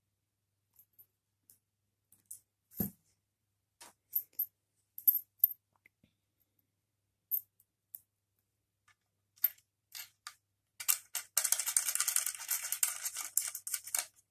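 Scattered small clicks and taps as the power cable and the Topping PA5's metal case are handled, then about three seconds of rapid metallic scratching and rattling near the end as the power supply's screw-on barrel connector is fitted and its threaded collar turned onto the amplifier's socket.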